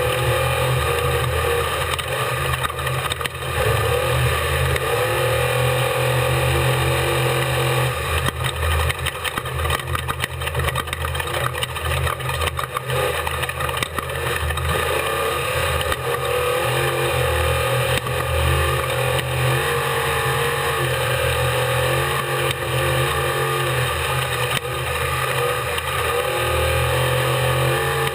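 Off-road race vehicle's engine running hard and steadily, its pitch rising and falling with the throttle, with many short knocks and rattles from the vehicle over rough ground.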